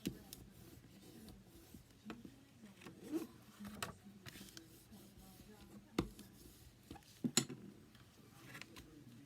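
Cardstock pieces being handled and stuck in place on a paper strip: light rustling with scattered sharp taps and clicks, the loudest about six and seven seconds in.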